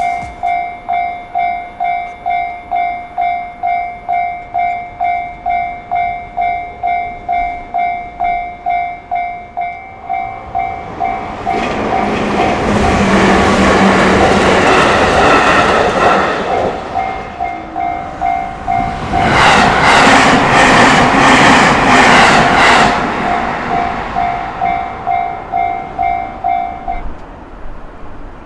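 Japanese level-crossing warning bell ringing about twice a second, with trains rumbling past through the crossing. The first passes from about 11 to 17 seconds, and a louder second one with rapid wheel clatter passes from about 19 to 23 seconds. The bell stops shortly before the end.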